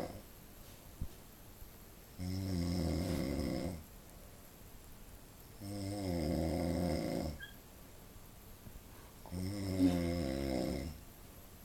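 Snoring from someone asleep on a couch: three long buzzing snores about three and a half seconds apart, each lasting about a second and a half.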